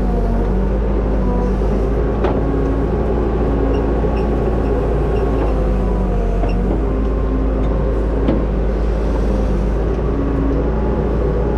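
Backhoe loader's diesel engine running steadily under work, its higher tones dipping and rising as the machine works. There are two sharp knocks, about two seconds in and about eight seconds in.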